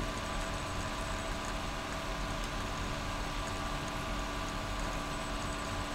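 Steady background hum and hiss with a few faint steady tones, even throughout with no distinct event.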